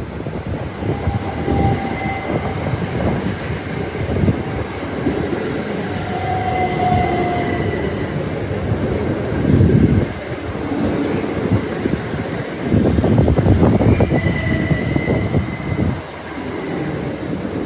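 A train running through the station: continuous rumble of wheels on track with repeated thumps, and brief high squeals from the wheels several times.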